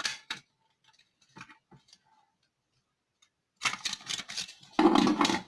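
Hands handling an opened plastic smoke detector: a few faint small clicks, then louder rustling and clatter over the last two seconds.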